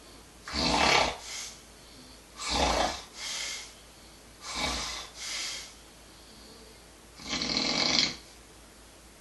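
Snoring in a steady rhythm, a breath about every two seconds. Four loud snores, each of the first three followed by a shorter, softer one; the fourth, near the end, is the longest.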